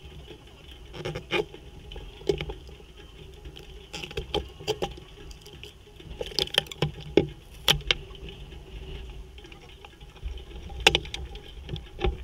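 Hands working in the cockpit of a stationary single-seater racing car with its engine off: scattered clicks, knocks and rustling as the harness is undone and the driver climbs out, close to the car-mounted camera.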